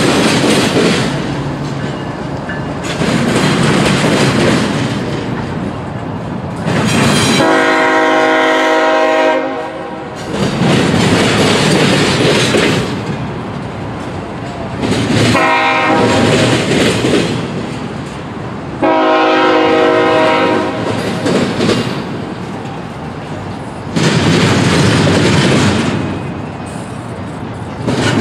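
Diesel freight locomotive's multi-chime air horn sounding a long blast, a short one and another long one, a crossing signal, over the loud rumble and clatter of the passing train.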